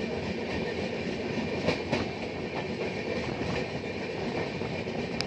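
Close-range rail noise of an Indian Railways parcel-van train running by on the adjacent track: a steady rumble of wheels on rail, with a few sharper wheel clacks about two seconds in.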